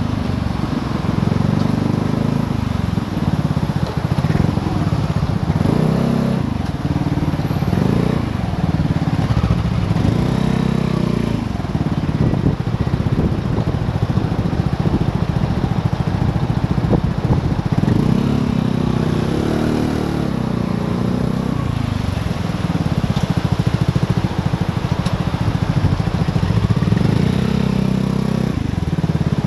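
Vespa GTS 250 i.e. scooter's single-cylinder four-stroke engine running at idle while nearly stopped in traffic, with a few brief rises in revs as it creeps forward.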